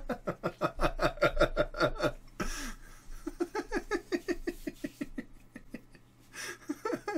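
Two men laughing hard in quick rhythmic bursts of about five a second, with a gasping breath about two and a half seconds in before the laughter starts again, and another breath near the end.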